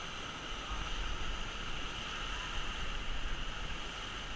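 Steady rush of river water around a raft, with wind rumbling on the microphone from about a second in.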